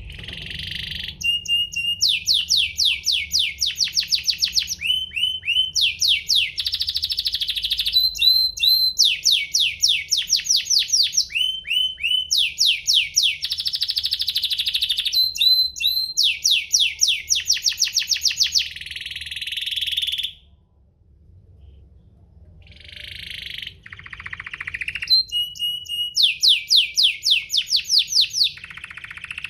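Domestic canary singing a long, fast song of rapid trills, each a run of quick repeated falling notes, with a short break about two-thirds through before it starts again. A faint low hum runs underneath.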